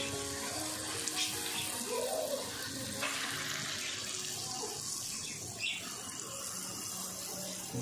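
Urad dal batter fritters sizzling in hot oil in an iron kadhai, a steady bubbling hiss as more dollops of batter are dropped in by hand.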